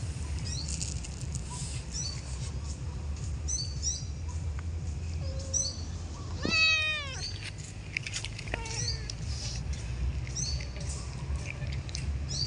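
A cat meows loudly about halfway through, one drawn-out call falling in pitch, with a fainter meow shortly after. Short high chirps repeat throughout over a steady low rumble.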